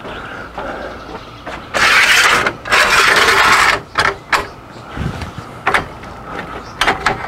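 Upper rafter arm of a manual Carefree RV awning being slid up, making two long metallic scraping rasps, followed by a few short clicks and knocks.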